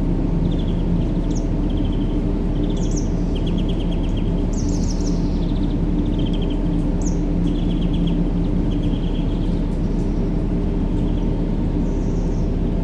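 A steady, low rumbling noise for baby sleep, with a faint hum in it, and small birds chirping in short repeated trills over it.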